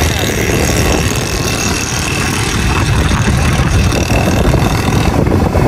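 Motorcycle running on the move: steady engine and road noise.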